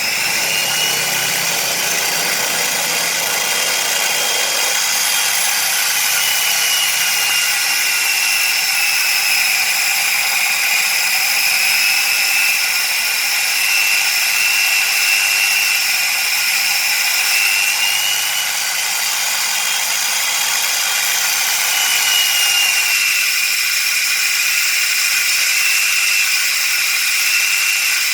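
A drill bit being ground against a grinding wheel to sharpen its cutting edge: a steady, high-pitched grinding hiss with a tone that wavers slightly up and down.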